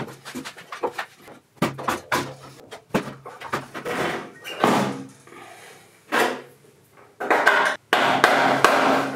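Metal and wooden knocks and clatter from a Vespa scooter engine and its parts being handled and fitted into the frame, turning into a run of rapid knocking near the end.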